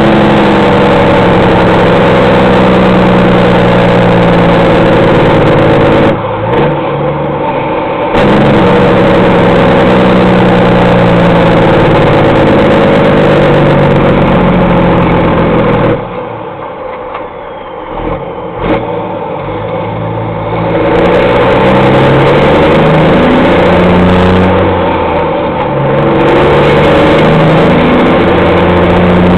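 Straight-piped Peterbilt semi truck's diesel engine, very loud under load. It drops away briefly about six seconds in, falls much quieter for several seconds in the middle, and comes back up near the end.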